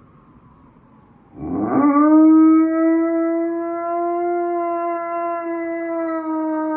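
Pet dog howling: one long, loud howl that starts about a second and a half in, swoops up quickly, then holds a steady pitch like a siren.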